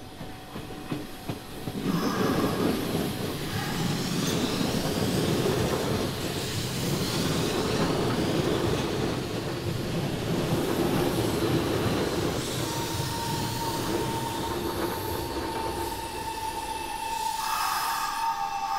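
Electric train running along the platform on the Sanyo Electric Railway line, loud from about two seconds in, with wheels clattering over the rails. A steady high squeal joins about two-thirds of the way through and grows near the end.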